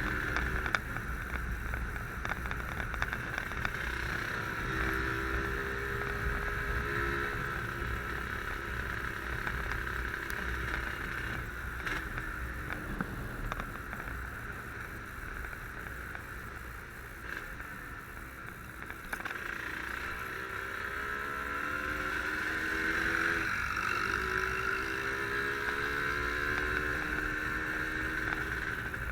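Yamaha RD135 two-stroke motorcycle engine running under way, its note rising in pitch as it pulls through the gears several times over a steady rush of riding noise.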